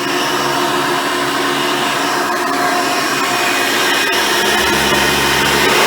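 Hoover Decade Elite Soft & Light upright vacuum cleaner running steadily while vacuuming, a continuous motor whine with a rushing airflow, getting slightly louder toward the end.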